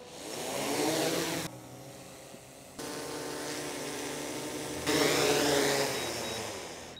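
DJI Mavic 4 quadcopter's motors and propellers: a rising whine as they spin up, then a steady hovering hum, then a loud stretch that fades near the end, in short segments joined by abrupt cuts.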